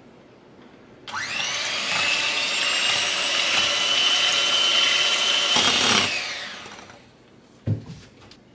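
Electric hand mixer whipping fresh cream and sugar in a glass bowl: the motor starts about a second in with a rising whine, runs steadily at speed, then is switched off about six seconds in and winds down. A single sharp knock follows near the end.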